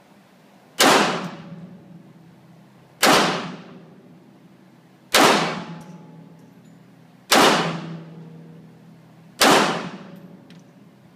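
Five shots from a small-calibre semi-automatic pistol, fired at a steady pace about two seconds apart, each crack followed by a short echoing decay.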